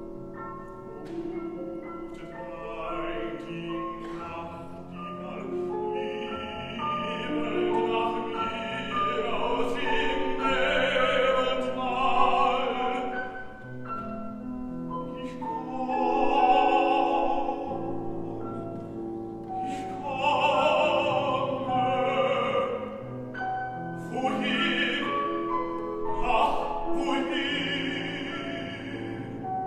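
A classically trained baritone singing a German art song with vibrato, accompanied by a grand piano. The sung phrases swell and ease off in loudness.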